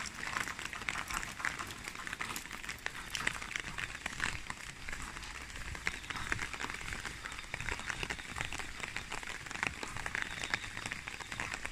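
Heavy rain falling, a dense crackling patter of drops.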